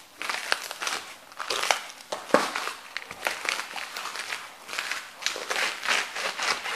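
Heavy Lowa hiking boots trampling fresh vegetable stalks and leaves on a cardboard sheet: repeated wet crunching and crackling as the stalks snap and squash underfoot, in irregular bursts.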